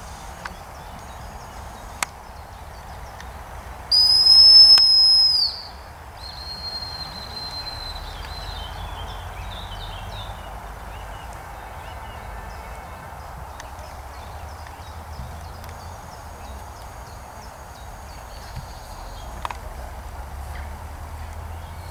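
A handler's gundog whistle gives one long, loud, steady blast about four seconds in, lasting about a second and a half. A single long blast is typically the stop signal to a working retriever. Fainter bird-like chirps follow over a steady outdoor background.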